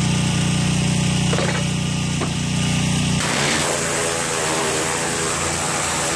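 Gas-engine pressure washer with a 3,000 psi CAT pump running, the engine's steady hum mixed with the hiss of the high-pressure spray. About three seconds in the sound changes: the low engine hum falls away and the spray hiss grows stronger.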